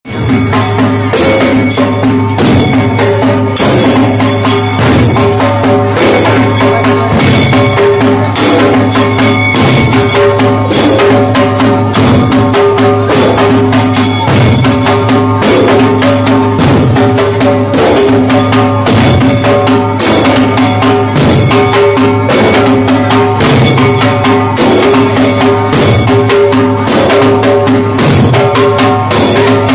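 Group of dollu players beating large barrel drums with sticks, loud continuous drumming in a steady, driving rhythm for the Dollu Kunita folk drum dance.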